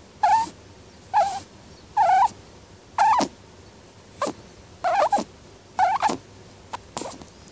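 Pet rabbit snoring in its sleep: short snores repeating about once a second.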